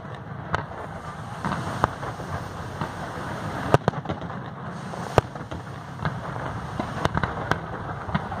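Fireworks display: aerial shells bursting in sharp bangs at uneven intervals, roughly one a second, over a continuous crackle.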